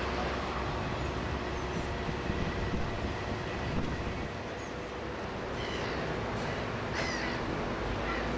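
Steady low outdoor rumble with a faint hum, and a few harsh, caw-like bird calls about six and seven seconds in.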